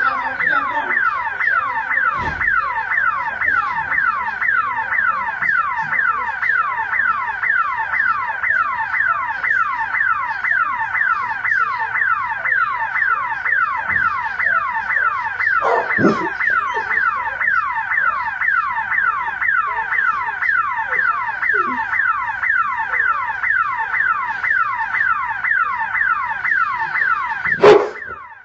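Electronic car alarm siren sounding without a break: a falling whooping tone repeated over and over at an even, quick rate. A short loud sound cuts in near the end.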